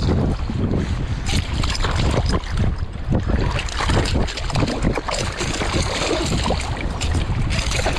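Strong wind buffeting the microphone in uneven gusts, a heavy low rumble.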